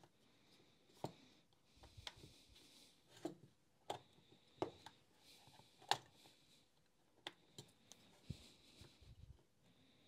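Faint clicks and taps of hard plastic as the clamshell housing of a Makita cordless heat gun is pried apart by hand, its screws already out; the small knocks come irregularly, about one a second.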